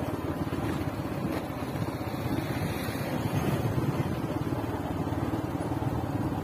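Engine and road noise of a moving vehicle heard from inside it: a steady low rumble.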